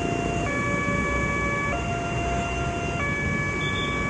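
Railway level-crossing warning alarm sounding its electronic two-tone signal, alternating between a higher and a lower tone about every second and a quarter: the warning that a train is approaching and the barrier is down. Traffic engines run steadily underneath.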